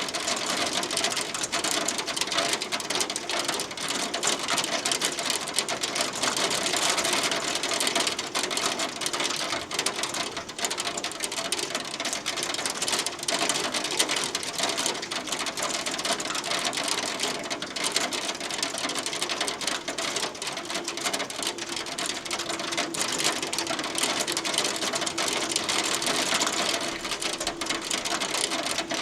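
Hail pelting down steadily: a dense, rapid clatter of small hailstones striking a hard surface.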